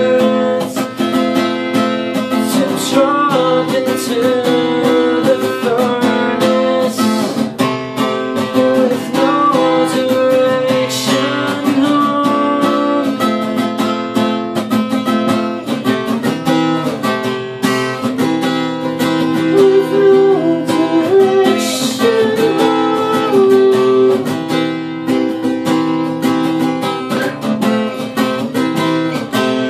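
Steel-string acoustic guitar strummed and picked continuously, with a man singing along.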